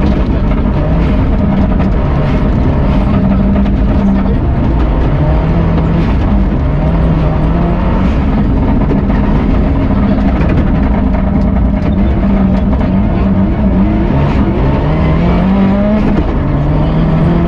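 Subaru Impreza N11 rally car's turbocharged flat-four engine at high revs, heard from inside the cabin, the engine note stepping up and down again and again as the car is driven hard through gears, over a dense low rumble and scattered sharp clicks.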